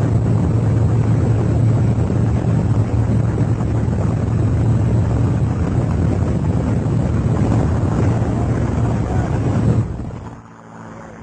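Steady drone of a small plane's engine and propeller, heard inside the cabin with wind rushing through the open door. It falls away suddenly about ten seconds in, leaving quieter wind.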